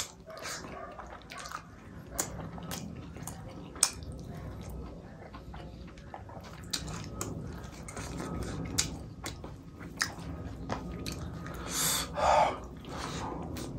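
A person eating chicken gravy and rice with the hand, close to the microphone: wet chewing with frequent short lip-smacking clicks. A louder, longer mouth sound comes about twelve seconds in.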